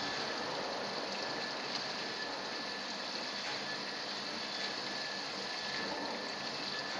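Chaodi dry-cleaning machine running: a steady, even mechanical hiss and rattle with a faint steady tone, as liquid sprays inside the drum.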